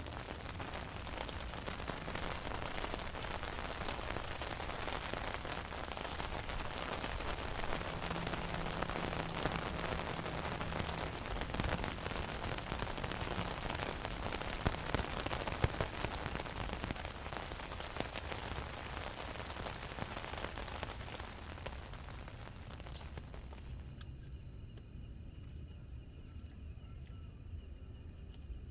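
Steady rain falling, an even hiss of many drops with scattered louder drop hits. About 23 seconds in the rain sound drops away sharply, leaving a much quieter background with a few faint steady high tones.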